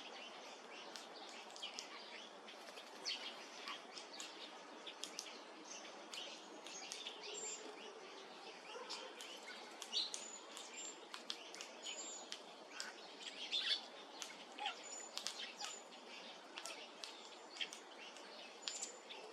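Faint outdoor birdsong: many short chirps and calls from several birds come irregularly over a steady low hiss, with a few brief high-pitched notes repeating now and then.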